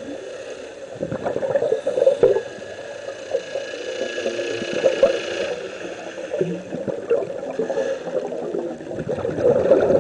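Underwater bubbling and gurgling from a scuba diver's exhaled air, heard through the camera's underwater housing. It swells about a second in and again near the end.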